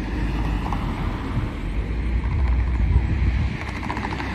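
Wind buffeting the microphone: an uneven low rumble that swells a little past the middle, over faint outdoor street noise.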